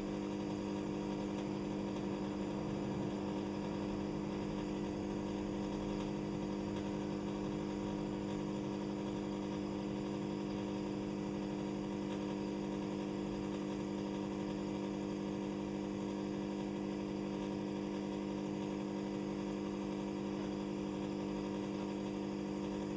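Steady electrical hum with several evenly spaced low tones, unchanging throughout.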